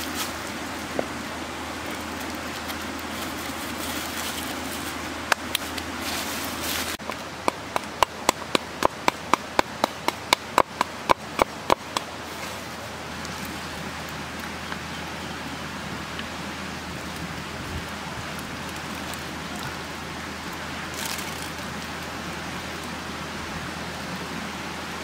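A cleaver chopping on a round wooden chopping board: a quick run of about fifteen sharp chops, roughly three a second, from about a third of the way in to halfway. Before and after the chopping there is a steady hiss, with a few faint clicks near the start.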